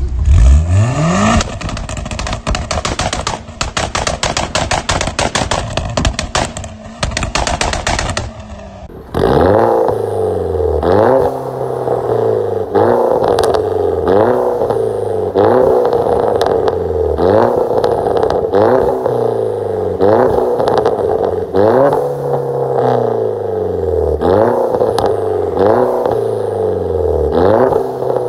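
Vauxhall Corsa VXR's turbocharged four-cylinder through a loud modified exhaust: a rev, then a long run of rapid crackling pops and bangs. About nine seconds in it changes to a second Corsa VXR revved over and over, a throttle blip about every second and a half, each dropping back with cracks from the exhaust.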